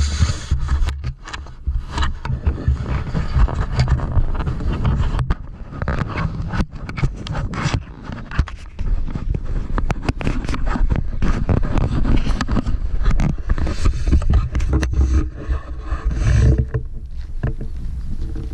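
Wind buffeting an action camera's microphone in gusts, mixed with scraping and knocking as the camera on its selfie stick is handled and swung about.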